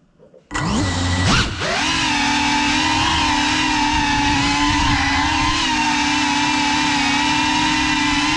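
Electric motors of a GEPRC CineLog35 ducted cinewhoop drone spinning up from silence about half a second in as it takes off. The whine dips in pitch briefly, then settles into a loud, steady high whine with an overtone as it flies.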